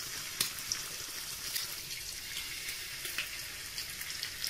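Bacon strips sizzling in a frying pan: a steady hiss with scattered crackles and pops.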